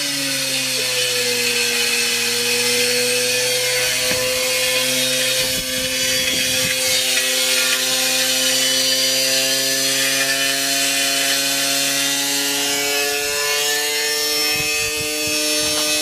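Washing machine spinning with a brick inside as it wrecks itself: a steady motor whine that drifts slowly in pitch over a continuous harsh grinding and scraping.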